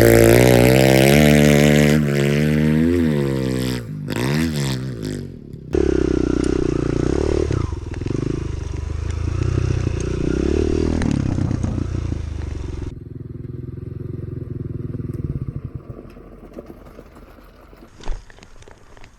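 Kawasaki KLX110 pit bike's small four-stroke single-cylinder engine revving up and down under throttle, dipping briefly, then running loud again. About two-thirds of the way through it drops to a much quieter low running sound, with a single thump near the end.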